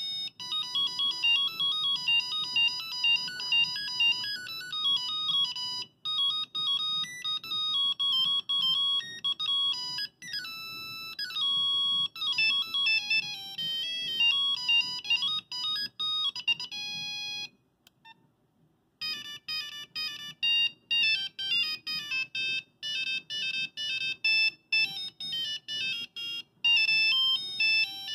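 Nokia 5110 monophonic ringtones playing one after another: simple single-note beeping melodies. Several different tunes follow in turn, with a pause of about a second and a half about two-thirds of the way through.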